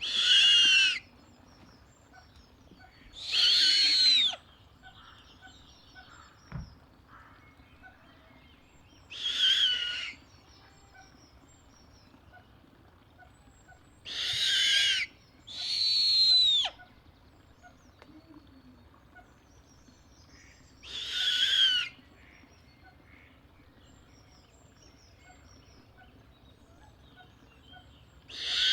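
Snowy owl calling: about seven high-pitched calls, each roughly a second long and bending down in pitch at the end, spaced a few seconds apart.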